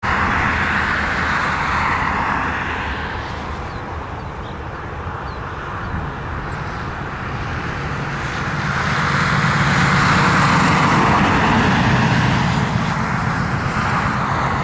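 A pickup truck drives past close by, its engine and tyre noise swelling to a peak about ten seconds in, over the steady distant hum of an Airbus A320's CFM56 jet engines on the runway.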